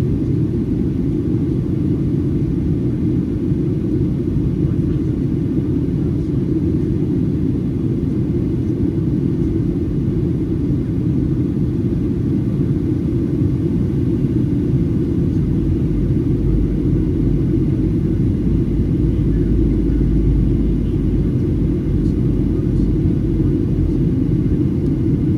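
Steady low rumble inside the cabin of a Boeing 737-800 in flight: the drone of its two CFM56-7B engines and the airflow over the fuselage, heard from a window seat by the wing.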